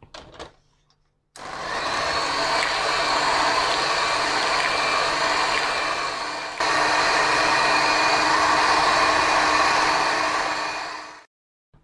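Electric hand mixer running steadily as it beats cream, condensed milk and yogurt together; it starts after a short pause, gets a little louder about halfway through, and stops shortly before the end.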